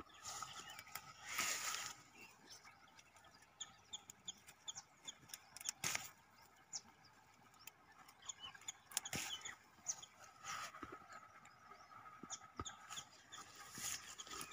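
Small birds chirping faintly and intermittently, with a few brief rustles of leaves and stems as the basil bush is handled.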